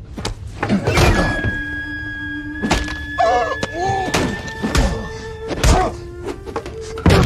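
Fight sound effects from a film scene: a string of about eight thuds and thunks as two men scuffle over a train table, under a music score holding long, steady notes.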